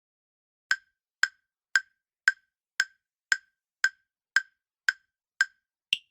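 Countdown timer sound effect: eleven short, sharp ticks at about two a second, the last one higher in pitch.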